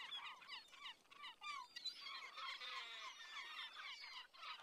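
A flock of birds chirping and calling: many short, quick calls that overlap, most of them falling in pitch, heard faintly.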